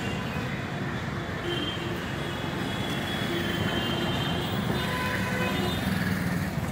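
Steady traffic noise of a busy city street, with faint held tones over it.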